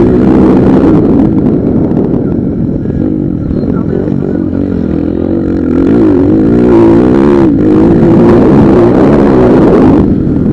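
Motocross motorcycle engines revving loud and continuous, their pitch rising and falling again and again.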